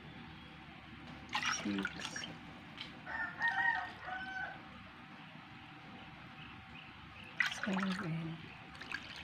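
Chickens calling three times, with rooster-like crows around the middle calls, over a faint trickle of coconut milk poured from a measuring cup into a pan.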